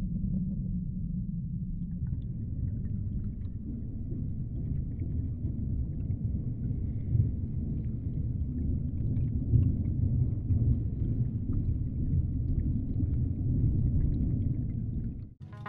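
Deep, low underwater rumble, with faint crackles and fizzing above it; it cuts out suddenly near the end.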